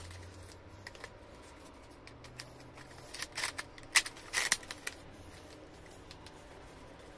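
Faint handling of a plastic toy plane launcher and a foam glider: a cluster of light plastic clicks and rustles about three to five seconds in, as the glider is seated onto the launcher.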